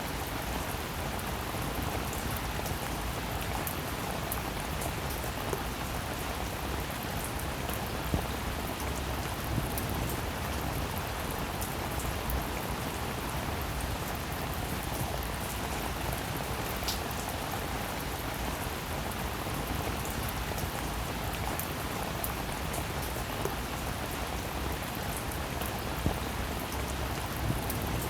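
Steady rain falling, an even hiss with scattered louder drop hits.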